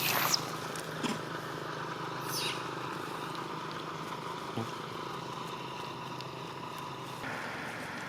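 Short high-pitched monkey squeals, one right at the start and a fainter falling one about two seconds in, over a steady outdoor hum that drops away about seven seconds in.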